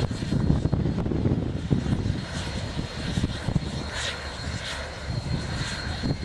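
Union Pacific 844, a 4-8-4 steam locomotive, getting its train under way: a steady low rumble with slow, irregular exhaust chuffs that grow clearer in the second half.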